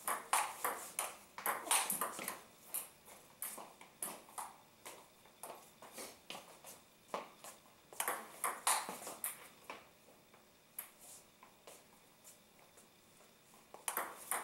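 Table tennis ball clicking off rubber paddles and bouncing on the table in quick rallies. There are three runs of rapid hits, at the start, around the middle and near the end, with scattered single bounces between.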